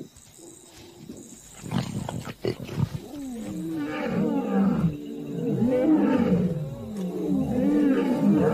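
Male lion roaring: a bout of deep, repeated roars that begins about three seconds in and grows louder, each call rising and falling in pitch.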